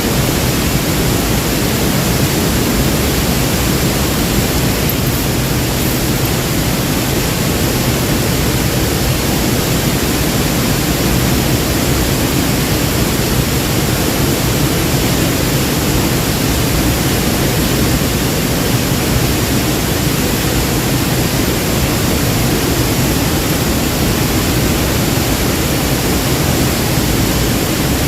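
Waterfall: water falling and rushing in a loud, steady, unbroken noise.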